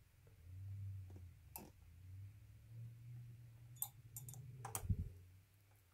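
A few sharp clicks and taps of a screwdriver on servo mounting screws being started into a plastic RC truck chassis, over a low rumble of hands working the parts. The loudest click comes about five seconds in.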